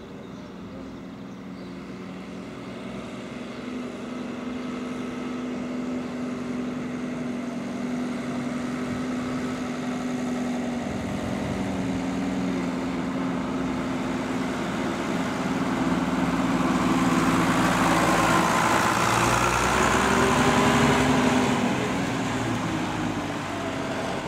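Vintage tractor engine running as the tractor drives up and past close by, growing steadily louder and loudest about twenty seconds in, its engine note shifting a few times along the way.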